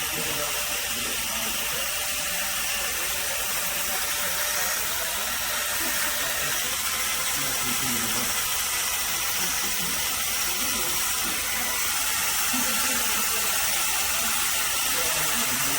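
Cordless 12-volt power scrubber working a wet surface: a steady wet hiss with a faint motor whine.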